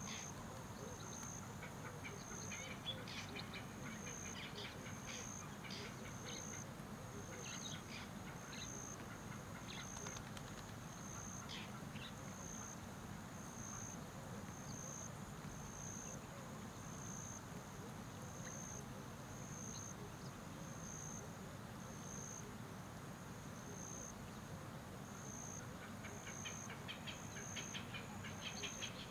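A high insect chirp pulsing about once a second over a faint hiss, with faint scattered bird chirps that grow busier near the end.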